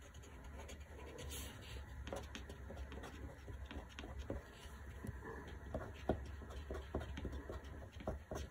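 Faint scratching of a dry watercolor crayon on paper, drawn in many short, irregular strokes.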